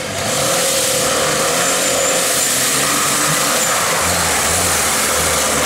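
Homemade tractor's engine running steadily under load as it drives up a dirt slope.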